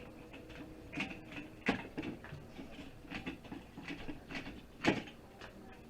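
Small electronic parts being handled and pulled apart by hand: scattered clicks and knocks, the sharpest about a second and a half in and near the end.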